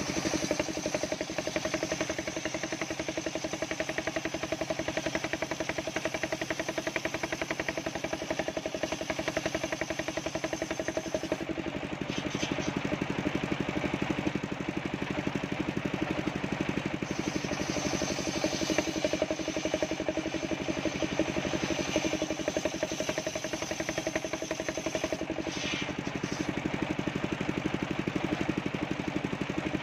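Homemade engine-driven circular saw bench running steadily while ripping coconut wood. A high sawing whine rides over the machine's drone and drops out for a few seconds twice, about twelve seconds in and again near the end.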